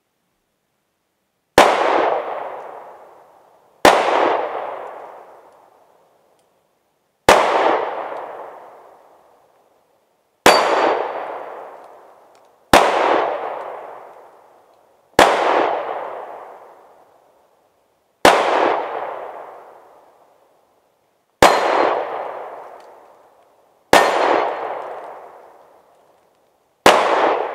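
A pistol fired ten times at steel targets, a shot every two to three seconds, each followed by a ringing that fades away over about two seconds.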